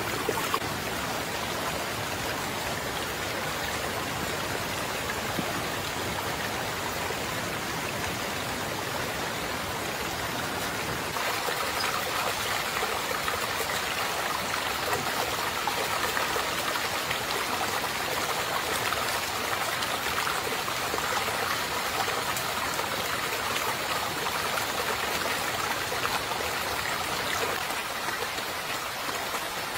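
River water rushing and trickling over rocks, a steady stream sound that grows slightly louder about eleven seconds in.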